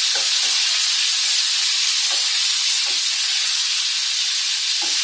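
Stuffed okra sizzling steadily in hot oil in a nonstick frying pan, with a few brief strokes of a wooden spatula as the pieces are turned over.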